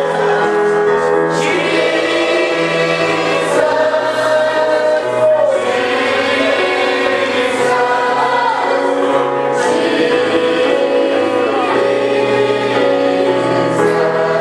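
Choir singing gospel music: held, sustained chords over a bass line that moves in steps.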